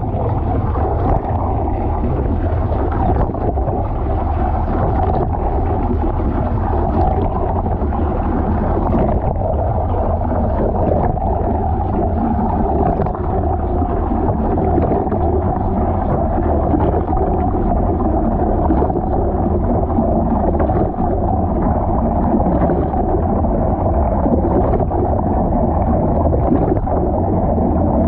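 Washing machine filling with water, a steady muffled rush and churn of water heard from inside the drum.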